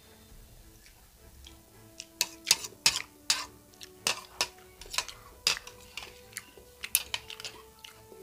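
A metal spoon and fork clinking and scraping against a ceramic bowl while scooping up noodles from the nearly empty bowl. The sharp, irregular clinks start about two seconds in and go on at a few a second.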